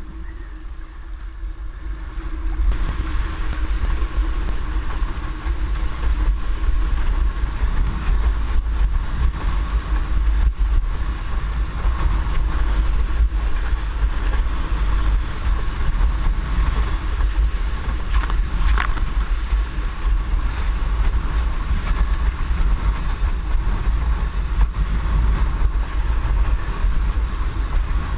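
Wind buffeting the microphone of a camera on a windsurfing rig while the board sails at speed, with the rush of water along the hull. It grows louder about two and a half seconds in and then stays steady.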